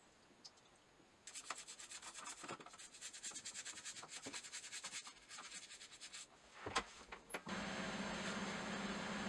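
Toothbrush scrubbing a wet rusty steel bolt in a plastic container, rapid back-and-forth strokes for about five seconds, then a single knock. Near the end a steady hum with hiss takes over.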